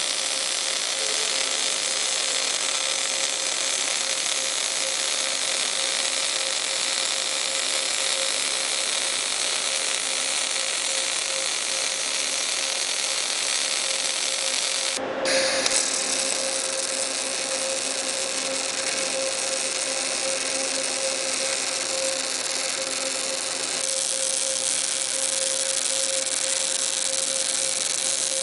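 Panasonic TAWERS robotic MAG welding arcs at 120 A running the low-spatter Active MAG and SP-MAG II processes, a steady hissing crackle with a steady tone beneath it. The sound breaks off for a moment about halfway through and then carries on.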